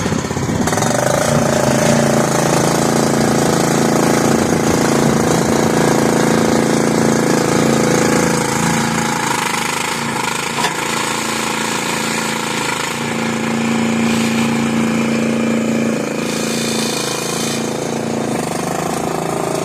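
The 15-horsepower gasoline engine of a ZJG ZJ-380 mini skid steer loader running steadily, its note changing about eight seconds in and again a few seconds later as the machine is driven and its controls are worked.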